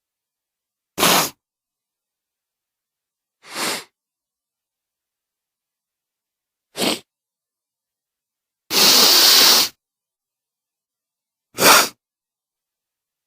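A person sneezing and coughing: five separate short bursts with silence between them, the fourth, about nine seconds in, lasting about a second and the loudest.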